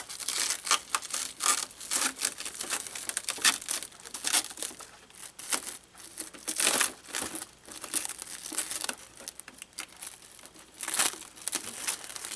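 Cellophane wrap crinkling and tearing as it is pulled off a plastic RC car body, an uneven run of sharp crackles.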